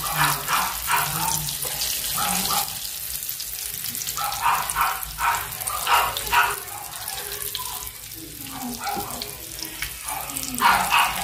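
Hot cooking oil sizzling steadily in a frying pan as breaded chicken nuggets deep-fry. Indistinct voices come and go in the background.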